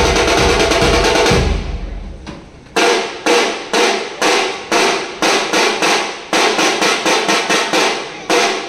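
Loud drum-led percussion music. After about a second and a half it thins out into a run of sharp single strikes, about two to three a second, each ringing out briefly.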